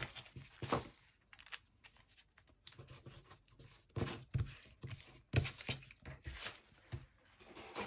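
Paper rustling and crinkling as hands smooth down glued paper scraps and sift through loose papers, in short scattered bursts with a quieter spell from about one to four seconds in.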